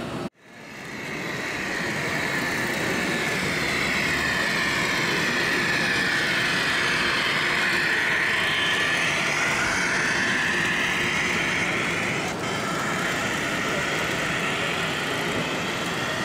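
Model train running past close by: the motor and wheels of a red DB diesel locomotive model pulling coaches along the track, a steady whirring hiss that swells in the middle and eases off again. It starts after a brief gap just after the start.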